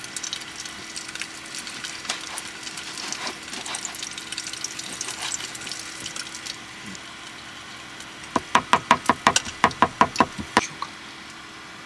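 A kitchen knife chopping raw horse mackerel on a plastic cutting board: light irregular tapping and crackle at first, then, about eight seconds in, a fast even run of about a dozen sharp chops as the fish is minced for tataki.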